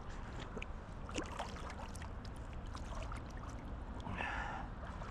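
Creek water splashing and trickling as hands are dipped and wetted in the stream, with small drips and clicks, and a short louder rush of water about four seconds in.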